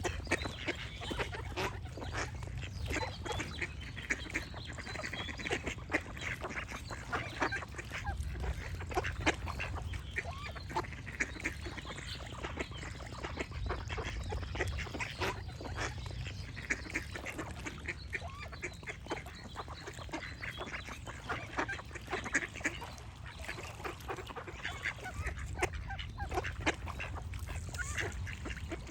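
A group of ducks quacking continuously, many short calls overlapping one after another, over a low rumble.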